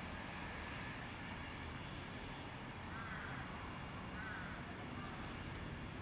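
Steady outdoor background noise, with two faint, short bird calls about three and four seconds in.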